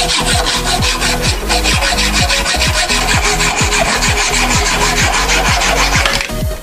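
Hacksaw cutting through a 1/4-inch bolt clamped in a vise, in quick, even back-and-forth strokes that stop about six seconds in. Background music with a steady thumping beat plays underneath.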